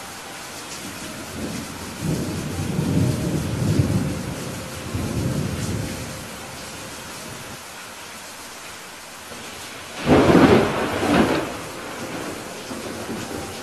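Steady rain with thunder: a low rumbling roll of thunder about two seconds in that dies away over a few seconds, then a louder, sharper thunderclap about ten seconds in.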